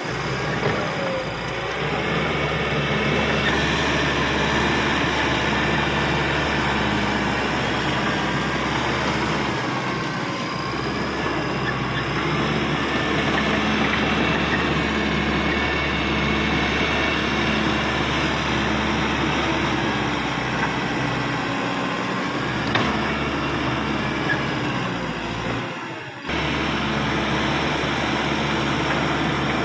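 Caterpillar D5K XL bulldozer running steadily at work, a continuous diesel drone with higher wavering whines over it, briefly dropping away near the end.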